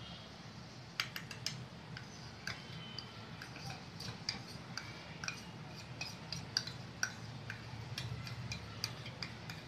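Steel spoon and small steel bowl clinking against a steel mixing bowl as cornflour is tipped and scraped in. It makes light, irregular ticks, a few a second, starting about a second in, over a low steady hum.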